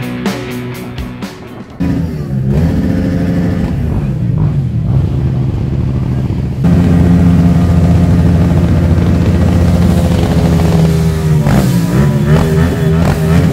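Rock music with guitar briefly at the start, then motorcycle engines revving. From about halfway in, one motorcycle engine is held loud and steady at high revs in a burnout, its rear tyre spinning on cobblestones, and the revs waver shortly before the end.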